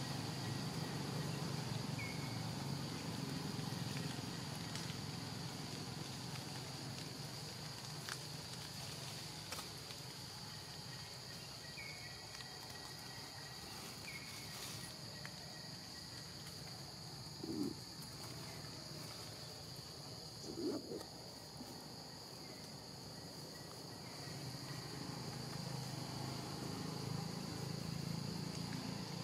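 Forest insects making a steady high-pitched drone, with a few faint short chirps. Two brief low sounds about three seconds apart near the middle are the loudest events.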